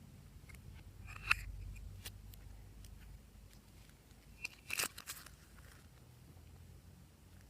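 Glossy slime being squeezed and worked by hand, with a few crisp popping clicks, the loudest about a second in and again near five seconds.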